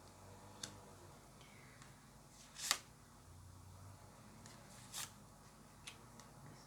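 Tarot cards being handled: a few short swishes and taps as cards are slid and laid down, the loudest nearly three seconds in, over quiet room tone.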